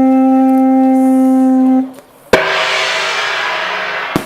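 A conch-shell trumpet (horagai) blown in one long steady note, the signal that starts the samurai procession; it stops about two seconds in. A sudden crack follows, ringing and fading away over about two seconds.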